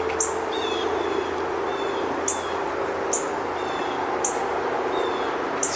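Short high bird chirps, each dropping quickly in pitch, about five of them at uneven intervals, over a steady background hiss and low hum.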